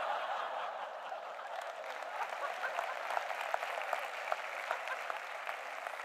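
Audience in an auditorium applauding: many hands clapping at once, loudest at the outset and then holding steady.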